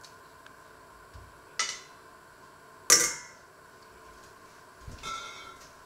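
Kitchen knife set down into a stainless steel colander: a sharp knock, then about three seconds in a loud metal clang that rings briefly, and near the end a softer metallic ring.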